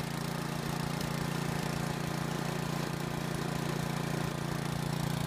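Briggs & Stratton Vanguard engine on a walk-along bandsaw mill running steadily at full throttle, its centrifugal clutch engaged so the band blade is spinning before it enters the log.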